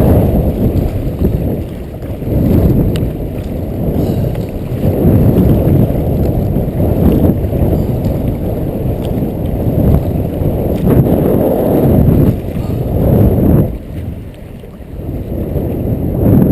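Strong wind buffeting the microphone in gusts: a loud low rumble that swells and drops every second or two, with a short lull near the end.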